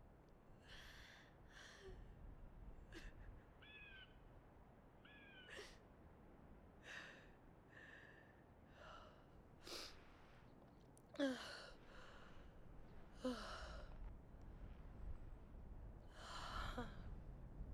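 A young woman crying softly: a string of breathy sobs, sniffs and catching breaths, some with short whimpering cries, the strongest a little past halfway.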